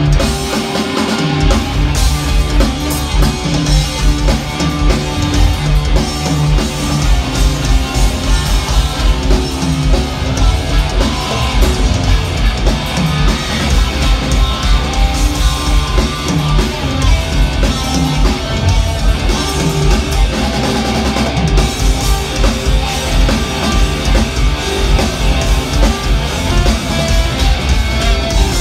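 Live hard rock power trio playing loud: electric guitar, bass guitar and drum kit, over a steady driving beat.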